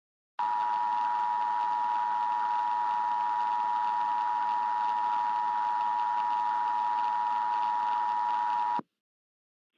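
Emergency Alert System two-tone attention signal: a steady two-note tone held for about eight seconds, starting just after the opening and cutting off abruptly near the end. It heralds a spoken emergency alert message, here an emergency action termination.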